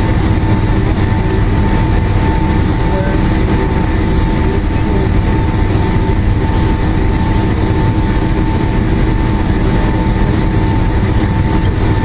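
Jet airliner cabin noise while taxiing: a steady low rumble of the engines at taxi power, with an even hum and a thin steady whine over it.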